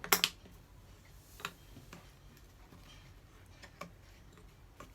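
Wooden puzzle pieces clicking and knocking against each other and the wooden board as they are handled, a few separate sharp clicks, the loudest right at the start and another about a second and a half in.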